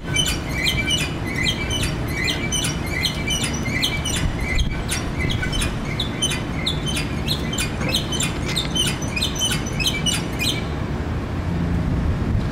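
A bird chirping repeatedly in short, quick calls, two to three a second, that stop near the end, over a steady low rumble.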